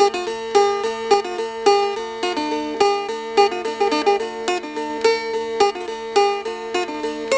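Background music: a plucked string instrument playing quick notes over a steady drone.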